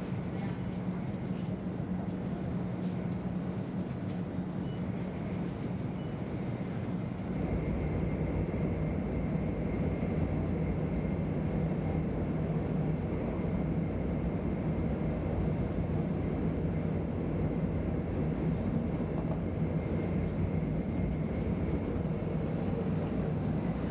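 Running noise of a 500 series Shinkansen at speed, heard inside the carriage: a steady low rumble with a faint steady whine, which gets louder and deeper about seven seconds in.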